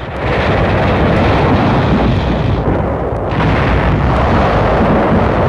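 Battlefield explosions: a long, rumbling blast with a deep low end, easing briefly about three seconds in before another blast follows.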